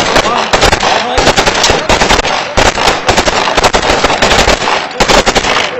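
Kalashnikov-type assault rifles fired into the air on automatic: dense, overlapping bursts of gunfire from several guns at once, with no real pause.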